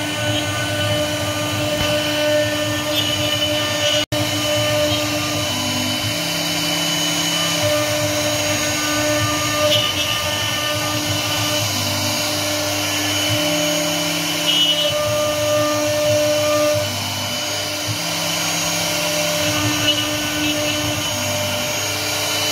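Air-cooled CNC router spindle running as its bit carves a floral relief into a wooden board. The steady machine whine has tones that step up and down in pitch every few seconds as the head moves, with a brief break about four seconds in.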